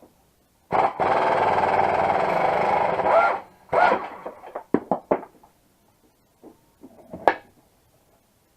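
A power tool runs in one loud, steady buzzing burst of about two and a half seconds, followed by several sharp metallic knocks and clanks.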